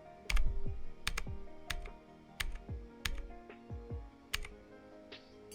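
Single key presses on an E-YOOSO Z686 mechanical keyboard with clicky blue switches, about eight sharp clicks at uneven intervals, made while cycling the backlight colours with Fn key combinations. Background music plays underneath.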